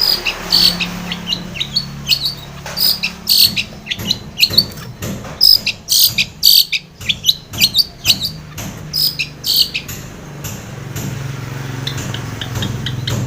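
Long-tailed shrike (cendet) singing in quick, irregular runs of short, sharp, high notes, thinning out near the end. A low steady hum sits underneath.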